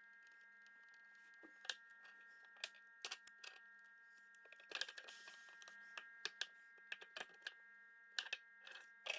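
Irregular small clicks and taps of hard plastic and metal as a hair crimper's casing and parts are handled and pried apart, with a short scraping rustle about five seconds in. A faint steady electrical hum runs underneath.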